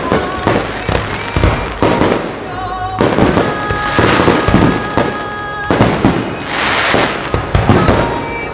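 Aerial fireworks bursting in a rapid run of bangs and crackles, over music played through the display's sound system.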